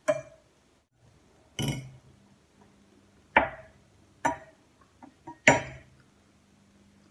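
Metal fork clinking against a ceramic plate while eating, about six or seven sharp clinks at uneven intervals.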